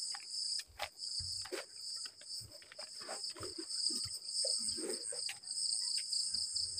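Crickets chirping steadily in a night chorus, with scattered knocks, scuffs and footfalls as someone walks through the yard.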